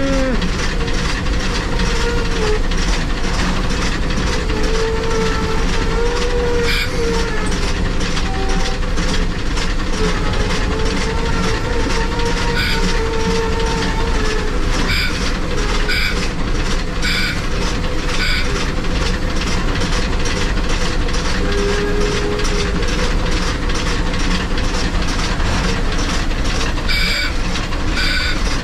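Cab of a Shay geared steam locomotive under way: a steady, loud mix of running-gear clatter and rail noise with a quick, even beat. Brief wavering squeals come and go.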